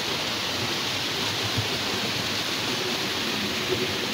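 Steady rush of flowing stream water, an even hiss with no changes.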